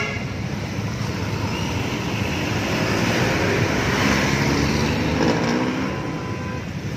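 Street traffic at a busy intersection: vehicle engines running and tyre noise, swelling as a vehicle passes close about three to four seconds in.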